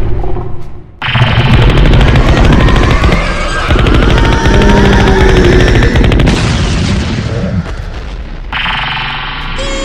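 Rapid machine-gun-like firing sound effect. It cuts in suddenly about a second in as a loud, fast rattle of shots, then gives way to a less even din.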